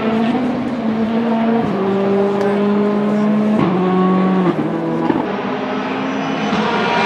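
Citroen DS3 WRC rally car's 1.6-litre turbocharged four-cylinder engine running hard at high revs. The note holds mostly level, jumps up about three and a half seconds in and drops back about a second later.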